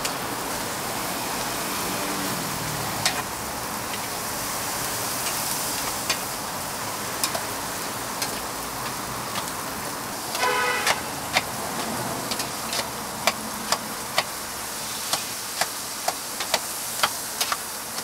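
Toast frying on a hot griddle with a steady sizzle, with irregular sharp clicks and taps of utensils. A short car horn toot comes about ten seconds in.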